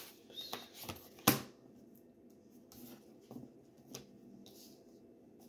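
Tarot cards being shuffled and handled, with a few light card snaps and rustles, the sharpest a little over a second in.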